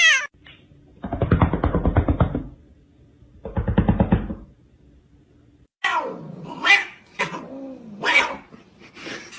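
Cat vocalising: two rough, buzzing calls in the first half, then a run of meows that rise and fall in pitch.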